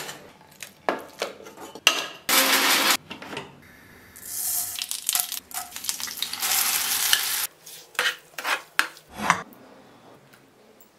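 Hot oil sizzling in a pan of tempering with curry leaves and dried red chillies as a ground paste is tipped in, after a short loud burst of sizzling about two seconds in; near the end a spoon scrapes and knocks a few times against a steel bowl as the chutney is mixed.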